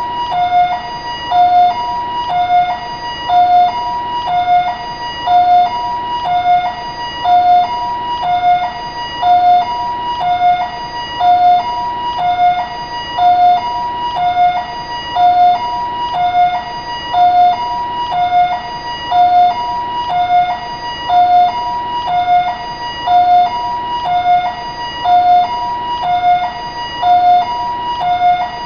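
Taiwanese ambulance siren sounding its two-tone high-low call, the two notes alternating steadily about once a second.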